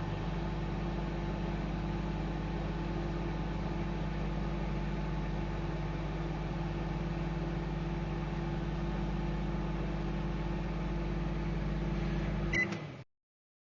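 Microwave oven running with a steady low electrical hum. It stops just before the end with a short click.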